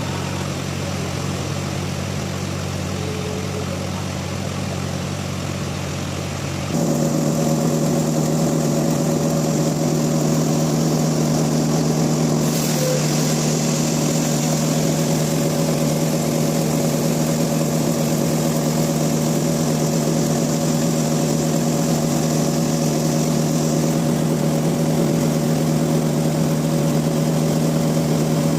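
Steady hum of sawmill machinery running, with a few steady tones. About seven seconds in, it changes abruptly to a louder, higher-pitched hum that holds steady.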